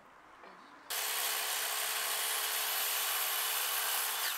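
Handheld electric circular saw cutting into a hinoki (Japanese cypress) beam. It starts suddenly about a second in with a steady whine and the noise of the blade through the wood, then dies away near the end as the cut finishes.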